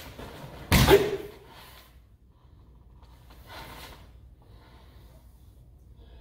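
A single loud kiai shout from a karate practitioner about a second in, the short sharp yell that marks a focused strike in a kata. It is followed by a softer rush of air a few seconds later.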